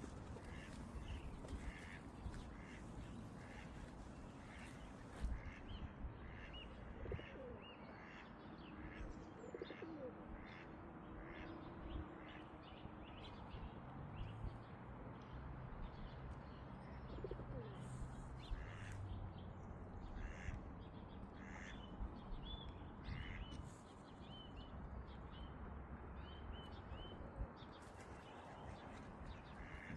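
Birds calling, short calls repeated every half second or so, over a steady background hiss.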